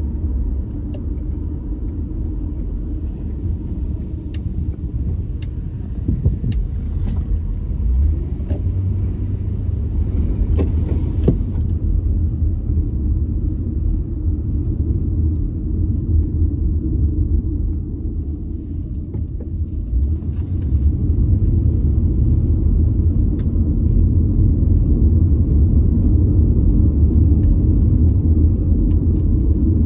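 Steady low road and engine rumble of a car being driven, with a few faint ticks in the first half. It grows louder about two-thirds of the way through.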